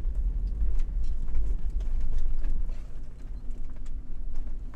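A Toyota LandCruiser 80 Series four-wheel drive driving slowly along a rough, potholed dirt road: a steady low rumble with scattered knocks and rattles.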